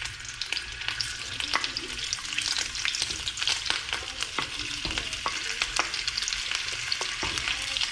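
Sliced hot dogs frying in hot oil in a pan, sizzling steadily with many sharp pops and crackles.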